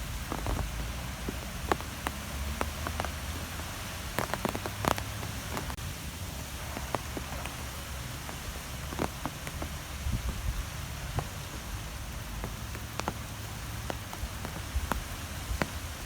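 Nature ambience of wind: a steady rushing noise over a low rumble, with scattered short ticks like drops pattering on a surface throughout.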